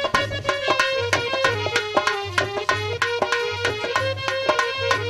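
Instrumental interlude of a Hindi devotional song: hand drums play a fast, steady rhythm under a sustained melody on a keyed instrument, with no singing.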